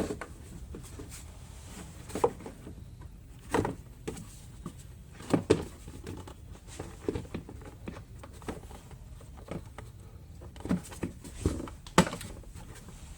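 Plastic engine cover on a Ram 5.7L Hemi knocking and clicking as it is worked into place and pressed down onto its rubber grommets and feet: a handful of irregular taps and knocks, the sharpest near the end.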